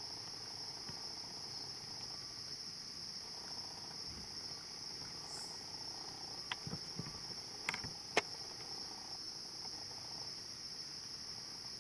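A steady, high-pitched chorus of night insects, such as crickets, trilling without a break. About two-thirds of the way through there are a few sharp clicks.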